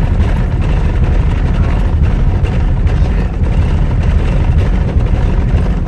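A flat tyre, nearly down to the rim, going round on a slowly driven car: a rapid, steady boom-boom-boom that sounds like a helicopter, over heavy low road rumble, heard from inside the cabin.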